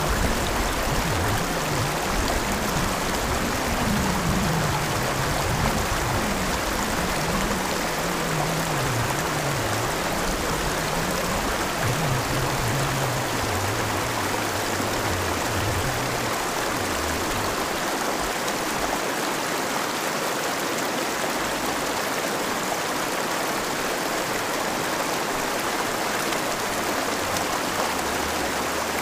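River rapids rushing steadily over rocks, an unbroken wash of white water.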